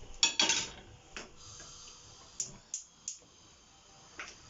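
Irregular sharp clicks and taps from kitchen prep work, with about seven in all and the loudest two near the start.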